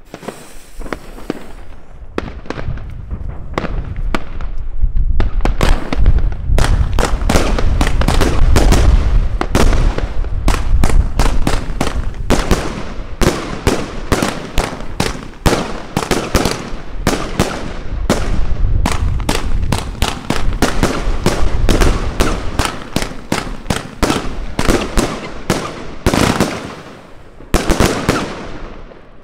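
Bonfireworks Sonic Spinshell 112-shot compound fireworks cake firing. A few shots go off at first, then shot follows shot in a dense barrage of launch thumps and bursts from about six seconds in, with a last volley near the end.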